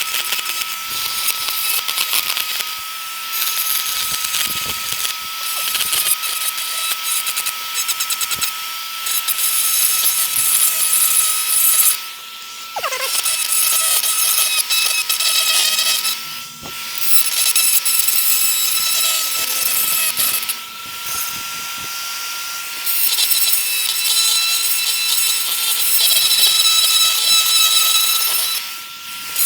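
RotoZip spiral-cut rotary tool running at high speed and cutting down the plastic lip of an old speaker frame: a steady high motor whine with a gritty hiss from the cut. The tool lets off briefly a few times, its pitch falling once about twelve seconds in.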